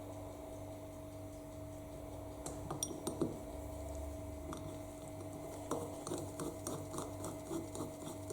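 Light clinks and taps of small metal parts being handled, in a cluster about two and a half seconds in and a quicker run in the last few seconds, over a steady hum.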